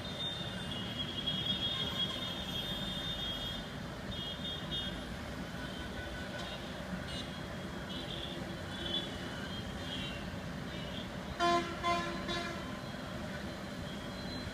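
Street traffic running steadily, with a vehicle horn giving two short toots near the end.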